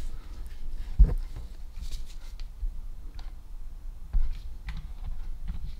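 Faint scattered clicks and two soft knocks, about a second in and about four seconds in, from hands handling the tap and its exposed valve spindle while wiping it with a cloth.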